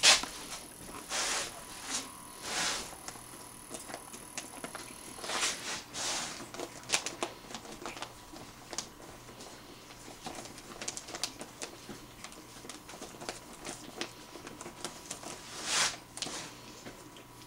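Newborn puppies suckling and shuffling against their nursing mother: scattered soft clicks and rustles, with a few louder rustles.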